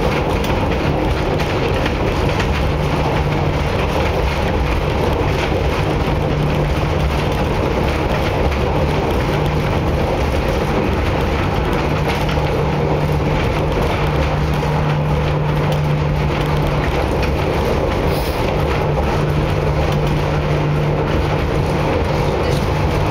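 Funicular car running downhill along its rails: a steady rumbling, rattling running noise with a steady low hum underneath.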